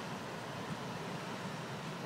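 Steady rushing of heavy surf breaking on the shore, mixed with wind on the microphone.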